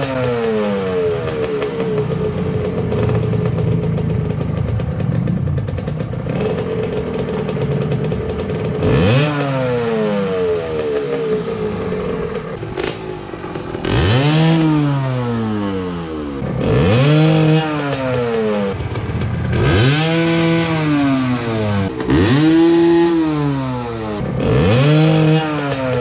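Kawasaki KMX125 two-stroke single-cylinder engine idling steadily, then blipped about six times in the second half, each rev rising sharply and dropping back to idle. It is running first with the stock reed valve and then with an aftermarket VForce reed valve, in a before-and-after exhaust sound comparison.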